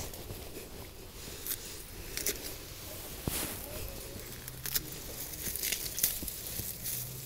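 Felco 2 bypass pruners snipping through a handful of iris leaves, several sharp clicks of the blades amid the rustle and tearing of the gathered foliage.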